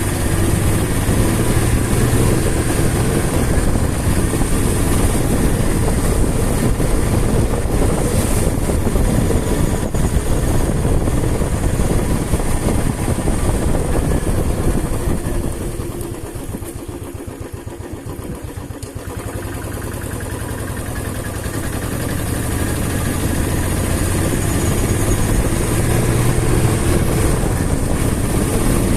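Motorcycle engine running as the bike rides along. About halfway through it drops to a slow, low beat as the bike eases off, then builds back up.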